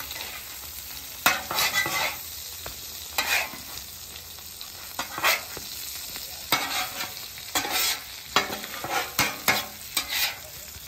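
Salmon fillets sizzling in melted butter, garlic and lemon juice on a Blackstone flat-top griddle, with a metal spatula scraping across the steel surface again and again.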